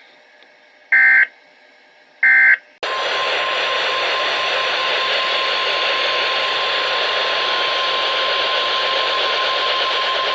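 Weather radio alert received over a radio: two short bursts of SAME digital header tones, then about three seconds in a loud hiss of static with a steady single-pitch alert tone over it. This is the 1050 Hz weather alarm tone that comes before a warning message.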